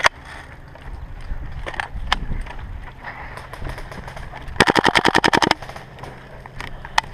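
Airsoft rifle firing a rapid full-auto burst of about a dozen shots lasting about a second, a little past the middle. Single sharp shot cracks come now and then before and after it.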